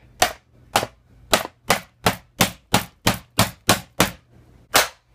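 A large wooden dildo hammering an old Asus laptop: about a dozen sharp, hard knocks of wood on plastic, quickening to about three a second, with a short pause before the last blow.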